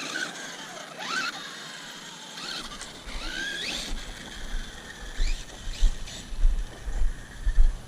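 Brushless electric motor of a Traxxas Sledge RC monster truck whining up in pitch as the throttle is punched, three or four times. From about two and a half seconds in, low uneven rumbling and thumps join it.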